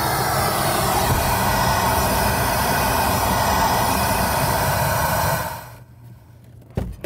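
Pink noise test signal played through a car's front speakers, a loud, even hiss with strong bass, used to measure the bass response after the doors were sound-deadened. It dies away about five and a half seconds in, and a single click follows near the end.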